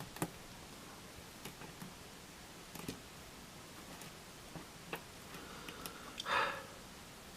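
Faint scattered clicks and light taps of a plastic action figure being handled and set down on a surface, with one short, louder soft noise about six seconds in.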